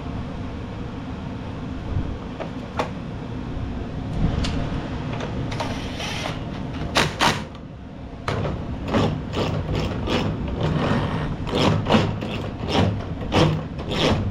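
Metal clicks and knocks of a push mower's rear wheel being fitted back on over its new drive gear, over a steady low hum. A few scattered clicks at first, then from about seven seconds in a quick run of knocks, roughly two a second.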